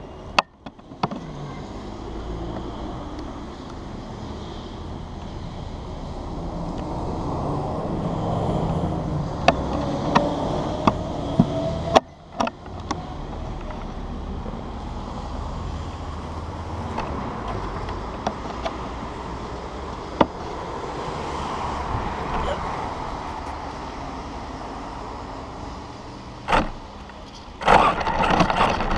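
Street traffic: cars passing, a steady road noise that swells and fades, with a few sharp clicks and knocks. A car drives close by near the end, the loudest moment.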